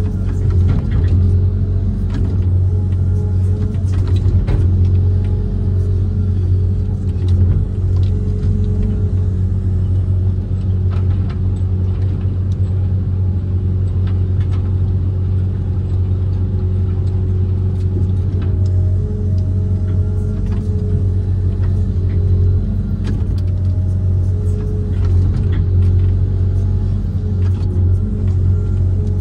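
Kobelco SK130 amphibious excavator's diesel engine running under load, heard from inside the cab as a deep, steady drone with little change in pitch or level.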